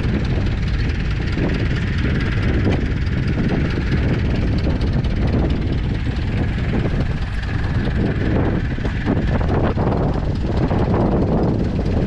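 Vintage International tractor engine running steadily under load while pulling a mounted plough through the soil.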